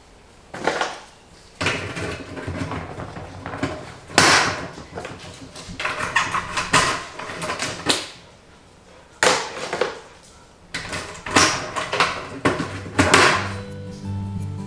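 Plastic rustling, scraping and light knocks as seedlings are handled and pushed into the grow ports of a plastic vertical tower garden, in about a dozen short scrapes with brief quiet gaps between. Music comes in near the end.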